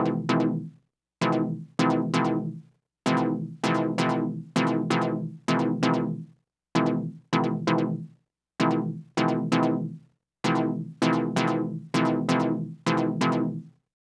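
Dave Smith Evolver synthesizer playing a sequenced chord pattern: short chord stabs, about two a second in a syncopated rhythm broken by short gaps. Each stab starts bright and darkens quickly as it fades, its filter closing down.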